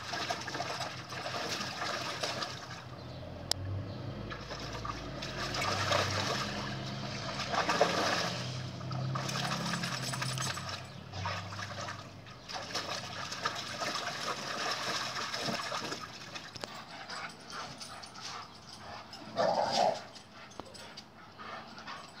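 Puppy splashing and paddling about in the water of a plastic kiddie pool, with uneven sloshing and dripping throughout. Near the end it gives one short bark.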